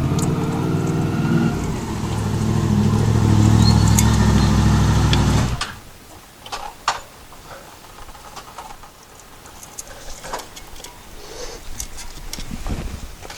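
A motor running steadily, a little louder toward four seconds in, then cutting off abruptly about five and a half seconds in; scattered light clicks and knocks follow.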